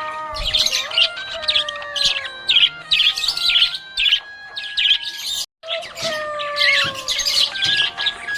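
Budgerigar chirping and warbling in quick clusters of high notes over a background melody of held, stepping tones. Everything cuts out for a moment about five and a half seconds in, then the chirping and music resume.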